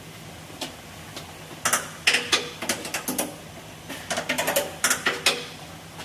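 Two runs of sharp mechanical clicking and clattering, each about a second and a half long, over a steady low hum.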